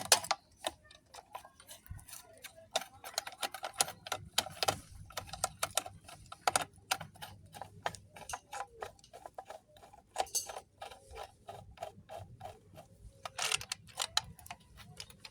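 Small metallic clicks and ticks of hand tools and loose parts as the carburettor cover of a Vespa scooter engine is taken off, with a few louder clacks scattered through.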